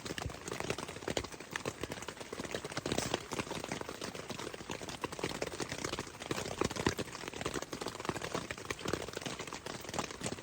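Raindrops tapping irregularly and densely on tent fabric.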